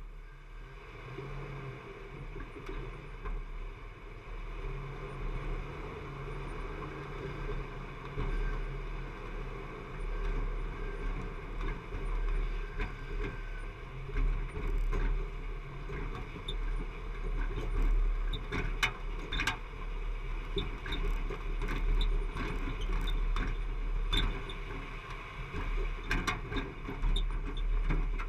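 Jeep driving off-road along a rough dirt trail: a steady low rumble from the running engine and rolling tyres, with sharp knocks and rattles from the bouncing vehicle. The knocks become frequent from about halfway through, as the loudness rises.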